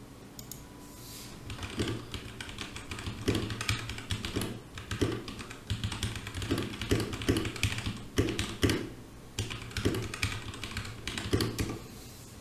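Computer keyboard typing, irregular key clicks a few per second, recorded as a sound test through a SUDOTACK ST-800 USB microphone, with a steady low hum underneath.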